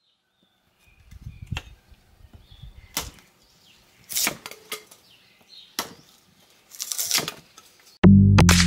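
Small hatchet chopping and splitting kindling on a log chopping block: a run of sharp wooden chops about a second apart. Near the end, loud electronic music with a heavy beat comes in.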